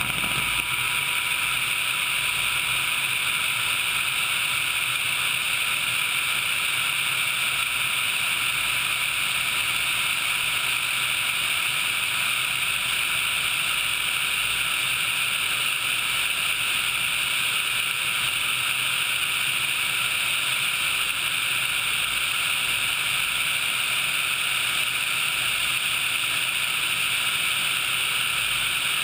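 Sikorsky HH-60 Pave Hawk helicopter in flight, heard from a camera mounted on the outside of the aircraft: a steady, hissy rush of airflow and engine noise with no distinct rotor beat.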